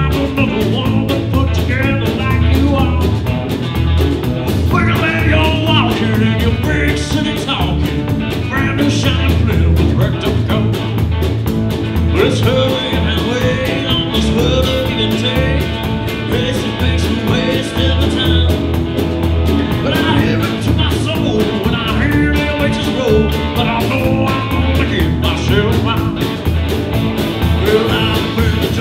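A trio playing a country-blues rock-and-roll song live: electric guitar, upright bass and drum kit, with a steady beat in the low end.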